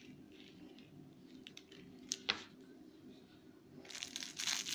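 Crinkle material in a soft fabric baby toy rustling as it is handled: mostly faint, with a couple of light clicks about two seconds in and louder crinkling near the end.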